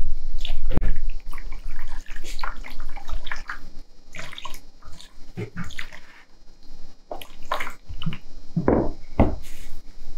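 Liquid ceramic glaze poured from a stainless steel pitcher over the outside of a bisque-fired vase, splashing and dripping into a basin of glaze below in an irregular run of small splashes.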